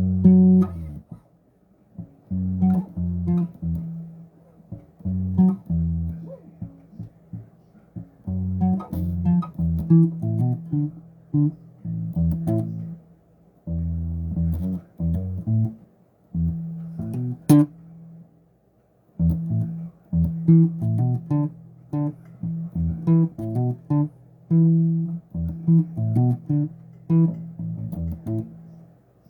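Electric bass guitar played solo in short phrases of plucked notes, with brief pauses between phrases.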